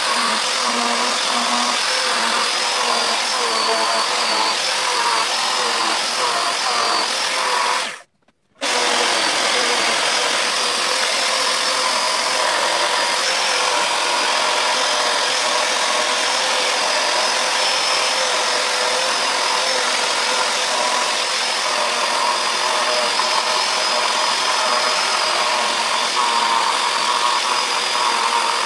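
Small corded McCulloch electric chainsaw running steadily as it cuts shallow grooves into a wooden board. The sound cuts out completely for about half a second near the first third, then goes on as before.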